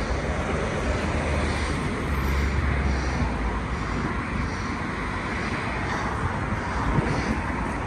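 Steady outdoor background noise, an even rushing haze with a low rumble that swells about two seconds in and eases off a second or so later.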